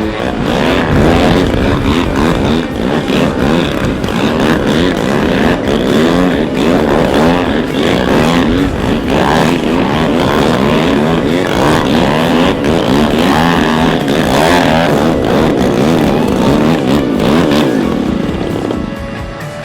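Radio-controlled model aircraft engine running hard, its pitch sliding up and down again and again as it is throttled and flies past. The sound drops away near the end.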